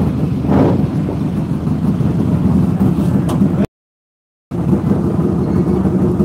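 Indian Challenger race bagger's V-twin engine running at a steady idle on its paddock stand, warming up before a qualifying session. The sound cuts out completely for about a second midway.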